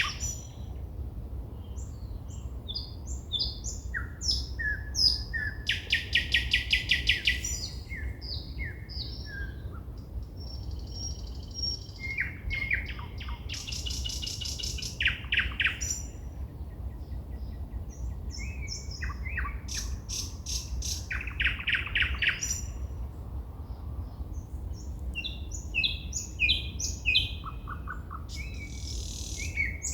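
Woodland songbirds singing at night: a string of varied phrases of clear whistles, short trills and fast runs of repeated notes, with short pauses between them, over a steady low background rumble.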